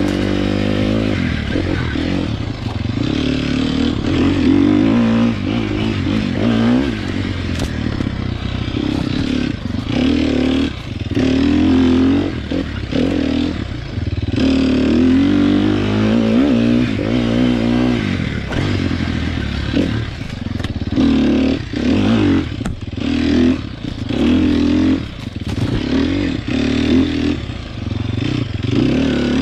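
Sherco SEF 300 Factory four-stroke single-cylinder enduro motorcycle being ridden over rough ground, the engine note rising and falling with repeated bursts of throttle and brief lifts off it. Clattering knocks from the bike bouncing over the terrain come through between throttle bursts.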